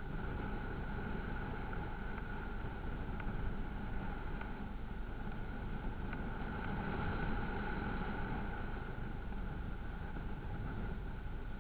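Vehicle engine running steadily while driving off road, with a low rumble and a steady whine that swells slightly a little over halfway through.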